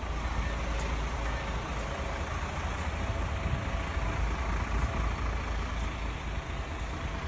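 Diesel truck engine idling steadily, a low, even rumble.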